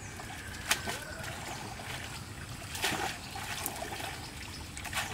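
Pond water splashing and trickling as a cast net is lifted and dunked in shallow water, with three short sharp splashes: about a second in, near the middle, and at the end.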